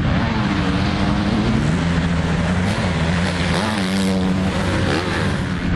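Motocross dirt bike engines revving, their pitch rising and dropping again and again with the throttle as the riders take the jumps.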